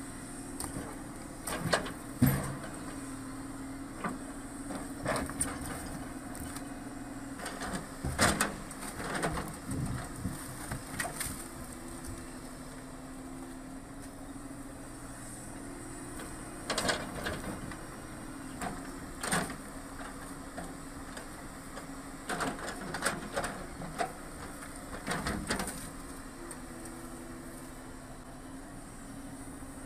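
Hydraulic excavator's diesel engine running steadily as its grapple swings and loads logs onto a trailer, with clusters of heavy wooden knocks and clunks as logs are dropped and bumped into place.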